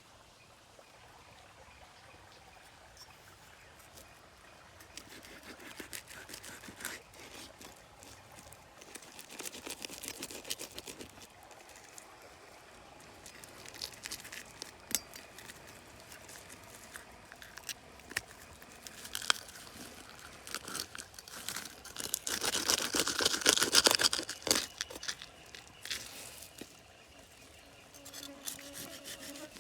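Rustling, crunching and scraping handling sounds with scattered small clicks, growing louder and denser for a few seconds about twenty-two seconds in.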